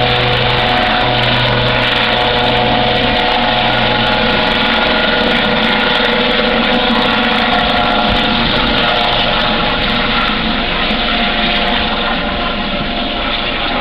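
Eurocopter AS365N3 Dauphin helicopter, twin turboshaft engines, flying close by just after take-off: a loud, steady turbine whine of several held tones over throbbing rotor noise, easing off slightly near the end as it moves away.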